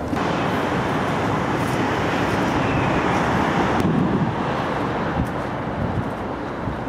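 Steady rushing outdoor noise with no voices, sounding duller from about four seconds in.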